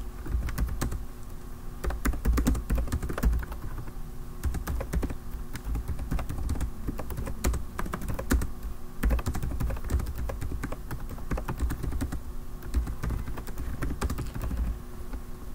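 Typing on a computer keyboard: quick runs of keystrokes, each a sharp click with a low thud, broken by short pauses, over a faint steady hum.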